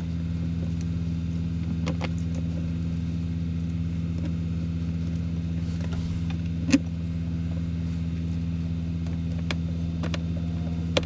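Truck engine idling with a steady low hum. A few small clicks and one sharper knock about seven seconds in come from bolts being driven back into the blower motor cover.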